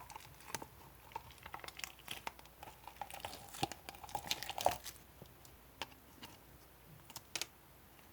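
Close-up crinkling and clicking handling noises: a dense run of small crackles for about five seconds, then a few separate clicks near the end.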